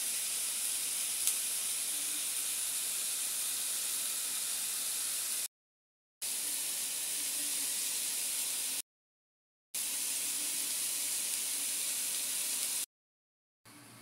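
Chicken strips and onions sizzling in a frying pan: a steady hiss, heard in three stretches broken by short silent gaps.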